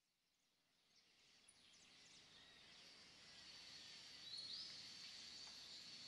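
Faint tropical rainforest ambience fading in from silence: a steady high insect drone with scattered bird chirps, and one rising bird call about four and a half seconds in.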